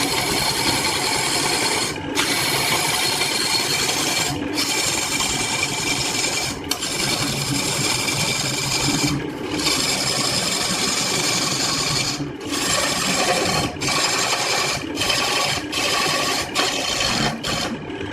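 A power tool working wood: a loud, continuous grinding whir with a steady whine on top, broken by short pauses every couple of seconds, coming faster toward the end.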